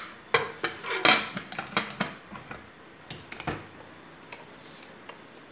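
Pressure cooker lid being fitted and closed onto the pot: a run of metal clanks and clicks, most of them in the first three and a half seconds, then a few faint ticks.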